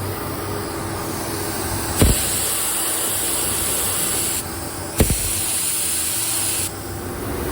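Paint spray gun spraying candy coat in two passes: a hiss that starts with a click about two seconds in, breaks off for about half a second, then runs again and stops shortly before the end. A steady hum runs underneath.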